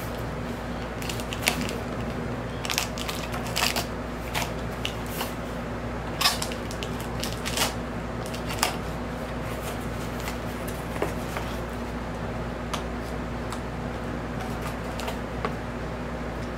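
Cardboard record mailer box being handled and its packing tape picked at: irregular crackles, scrapes and taps, most frequent in the first half, over a steady low hum.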